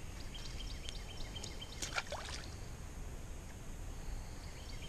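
A small sunfish released by hand, splashing once into the pond about two seconds in.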